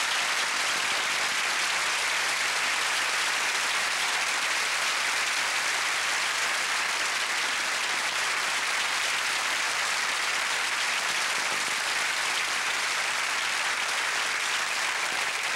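Studio audience applauding steadily after a song ends.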